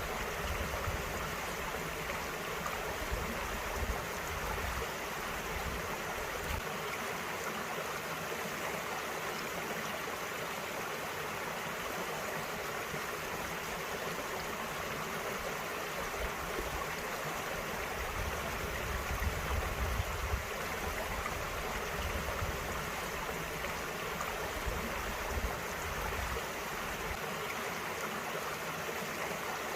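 Small mountain stream running over rocks, a steady rush and babble of water.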